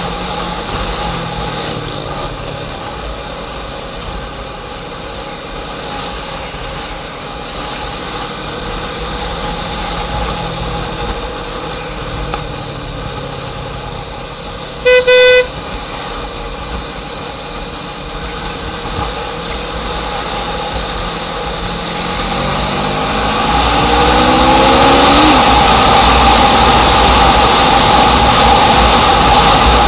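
Motor vehicle engine running amid road noise, with a single short horn honk about halfway through. A few seconds later the engine pitch rises and the noise grows louder, as when speeding up.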